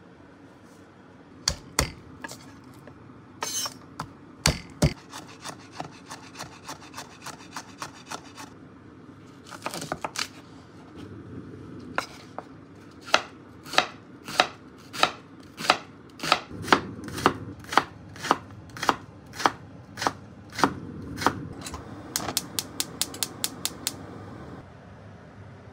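Kitchen knife chopping long green onions on a cutting board. The knocks come unevenly at first, then settle into a steady run of about two chops a second. Near the end there is a quick run of lighter, sharper ticks.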